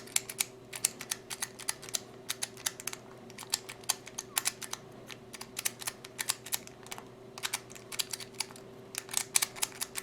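Master Lock 1530 combination padlock's dial clicking as it is spun while the shackle is bumped, irregular sharp clicks in uneven clusters of a few a second: the lock being decoded by feel for its last number.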